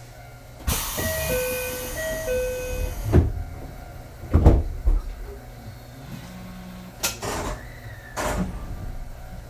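Passenger doors of an Ichibata 7000-series railcar operating at a station stop: a repeating two-tone door chime sounds over a hiss of air, followed by two heavy thuds a little over a second apart as the doors reach their stops. Further short knocks and hisses come near the end over the car's low steady hum.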